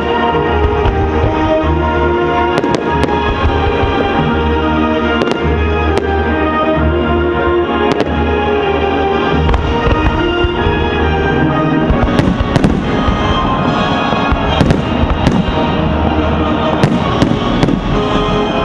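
Aerial fireworks shells bursting over a music soundtrack, a few scattered bangs at first, then a rapid run of bangs in the second half.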